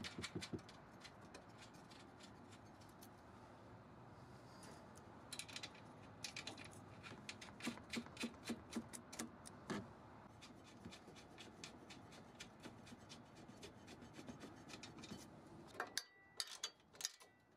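Faint small metallic clicks and scraping as nuts are threaded onto a front strut's upper mounting studs and run up snug; the clicks come in a spell through the middle and again shortly before the end.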